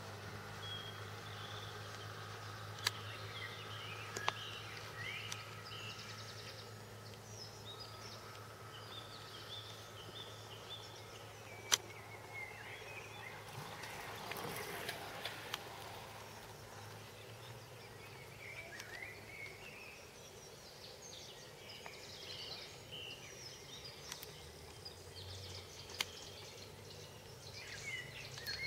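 Outdoor ambience of small birds chirping and singing in short rising and falling notes, over a low steady hum, with a few sharp clicks and a brief rush of noise about halfway through.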